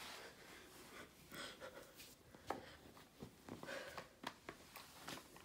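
Near silence: faint room tone with scattered small clicks and soft rustles.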